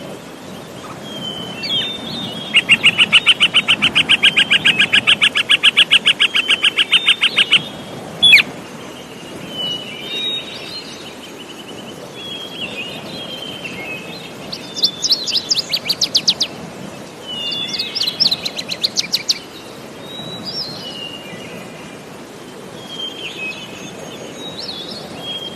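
Birds calling. Three fast runs of sharp repeated chirps, about six a second, come about two seconds in and twice more past the middle, with scattered single chirps between them over a steady low rushing noise. A single sharp click comes about eight seconds in.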